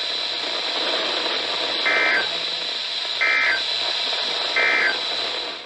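NOAA Weather Radio broadcast heard through heavy static: a steady hiss with a faint high whine. Three short warbling data bursts come about 1.3 seconds apart, the SAME end-of-message tones that close the alert. The signal cuts off abruptly near the end.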